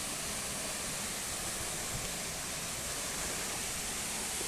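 Steady rushing of a waterfall, an even hiss with no breaks.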